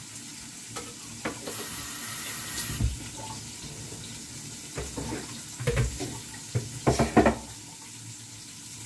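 Chicken wings frying in hot oil in a pan, a steady sizzle that grows brighter for a moment about two seconds in. A few soft knocks, likely from handling the pan, come through the sizzle near the middle and again about seven seconds in.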